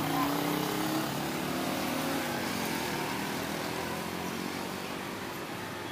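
A motor vehicle engine rises in pitch and fades away over the first couple of seconds, leaving steady street traffic noise.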